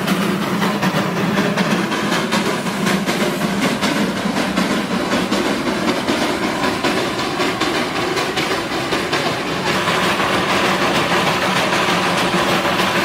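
Darjeeling Himalayan Railway toy train running on its narrow-gauge track, a steady rush with the wheels clattering over the rails. About ten seconds in, the clatter gives way to a smoother, brighter rush.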